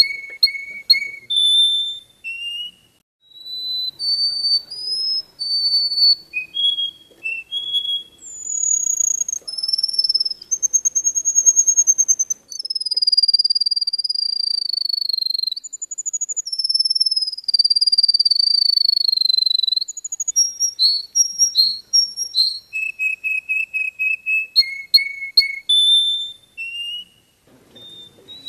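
Yellow finch singing a long, varied song of clear high whistles: short notes and trills, two long slowly falling whistled phrases in the middle, then quick runs of repeated notes near the end.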